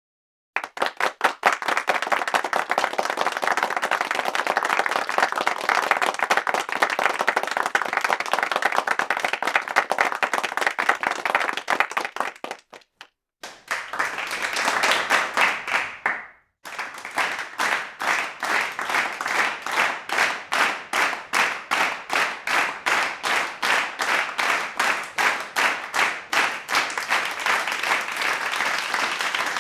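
Crowd clapping and applauding. The applause stops dead near the middle, comes back for a few seconds and cuts off again. It then resumes as rhythmic clapping in unison, about two claps a second.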